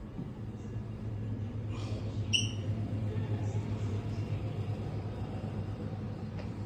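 A low, steady droning rumble that swells about a second in, with one bright, ringing ping about two and a half seconds in: horror ambience sound effects.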